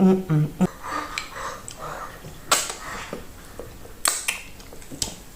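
Close-up eating sounds of fufu and okra soup: chewing with a few sharp wet mouth smacks, clearest about two and a half and four seconds in.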